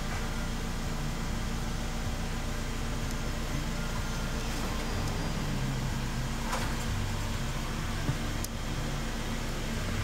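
Mercedes-Benz GLA200's engine idling steadily, heard inside the cabin as a low even hum. A couple of light clicks come in the second half.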